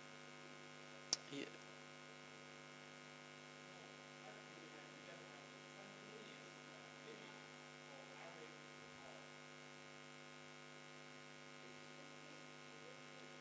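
Near silence filled by a steady electrical mains hum from the sound system, with one sharp click about a second in.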